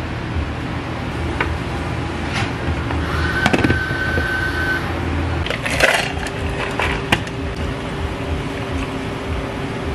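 Dishware being handled on a cafe counter over a steady machine hum: scattered clinks and knocks of glass and china, the loudest a little past halfway. The background hum changes to a higher steady tone partway through.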